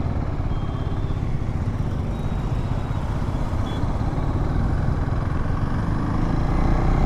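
KTM Duke 390's single-cylinder engine running steadily while the motorcycle is ridden, getting slightly louder near the end.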